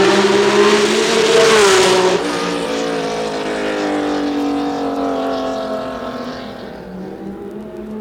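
1967 Formula One race cars going by at racing speed, their engines loud at first; about two seconds in the pitch drops and the sound slowly fades away toward the end.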